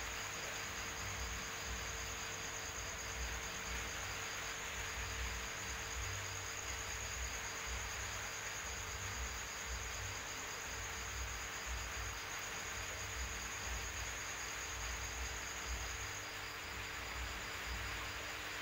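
Two crickets trilling steadily at different pitches, the higher one stopping near the end, over a steady hiss and low hum.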